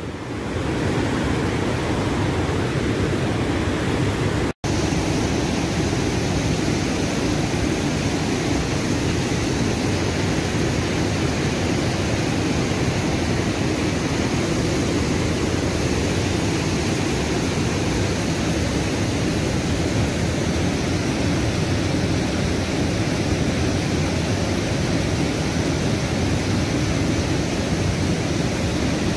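Steady rush of a fast mountain river running over rapids, an even noise without pause except for a momentary dropout about four and a half seconds in.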